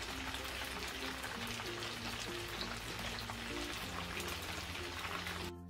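Hot oil crackling steadily around battered chicken pieces in a frying pan, on their second fry at high heat to crisp them. Soft background music plays underneath, and the frying cuts off suddenly near the end.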